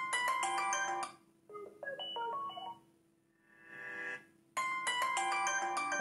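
Vivo smartphone playing its built-in ringtone previews through the speaker: four short chiming melodies one after another. Each starts suddenly as a ringtone in the list is tapped and is cut off after a second or so. The third is quieter and swells in just before the middle.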